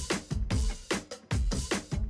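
Background music: a fast, steady drum beat with a deep kick drum.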